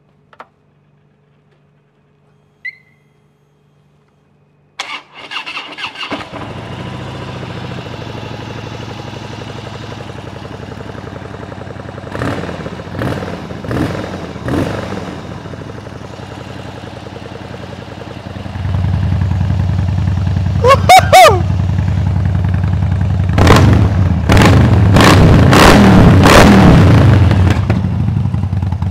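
Harley-Davidson Dyna V-twin with a new Jekill & Hyde valve exhaust, started for the first time: it cranks and catches about five seconds in, then idles with three quick throttle blips. It runs louder from about eighteen seconds, with a short squeal a little after, then a string of revs near the end.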